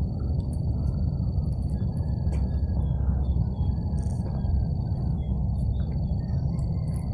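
Outdoor night-time-style ambience: an insect, likely a cricket, trilling continuously on one high note, with a few faint chirps and clicks above a dense, steady low rumble.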